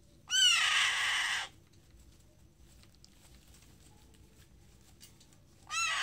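Parakeet chick giving two harsh, rasping begging screeches. The first lasts about a second and starts just after the beginning; the second comes near the end. These are a hand-fed chick's begging calls while it flutters its wings for food.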